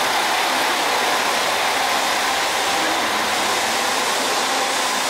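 HOT7000 series diesel railcar's underfloor engines running steadily at the platform, a constant rushing noise with no change in level.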